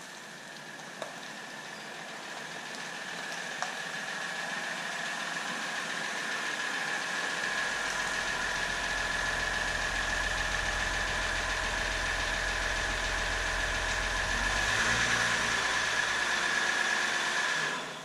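A motor running steadily with a constant whine, slowly getting louder, with a low rumble through the middle, then cutting off abruptly near the end.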